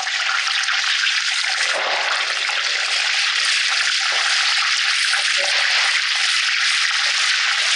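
Amra (hog plum) pieces frying in hot mustard oil in a pan, a steady sizzling hiss.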